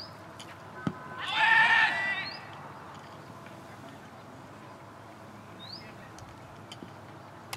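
A single sharp knock about a second in, fitting the cricket ball meeting the bat, followed at once by a loud, high, slightly wavering call about a second long. Short rising bird chirps sound now and then.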